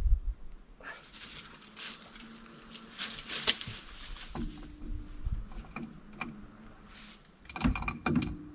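Small metal pieces jingling and clinking, with scattered knocks and a louder cluster of thumps near the end.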